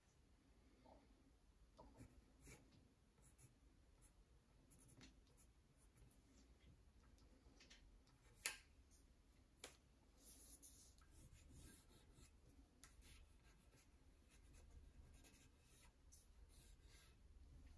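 Faint scratching of a pencil sketching on paper, in short irregular strokes, with a sharp click about eight and a half seconds in and a smaller one a second later.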